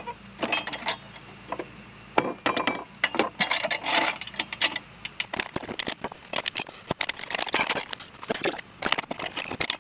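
Irregular metal clinks and knocks as a small mower tire on its steel rim and the steel bar of a manual tire changer are handled on a wooden pallet, while the tire is set up for breaking its bead again. The knocks come thicker after the first few seconds.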